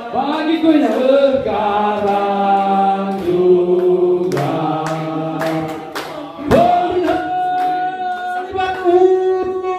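A group of people singing a birthday song together, holding long notes, with a short break and a new phrase about six seconds in.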